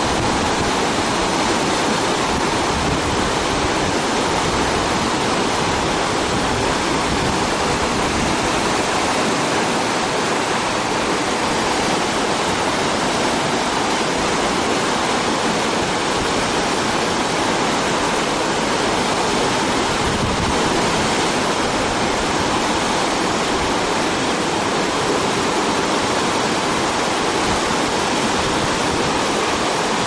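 Whitewater rapids rushing steadily and loudly, an even, unbroken sound of churning river water.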